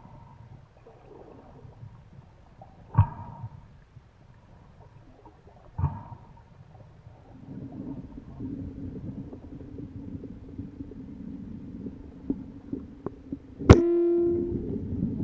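Speargun fired underwater: one loud sharp crack near the end with a brief ringing tone as the spear and its line shoot out. Before it, two soft knocks and a low steady underwater hum.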